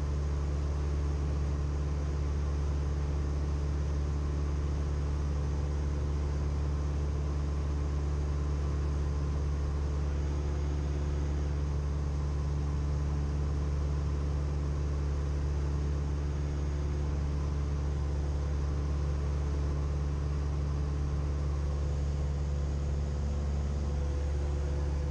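Steady drone of a Cessna 172M's four-cylinder Lycoming engine and propeller in cruise, heard inside the cabin, with a deep, even hum that does not change in power.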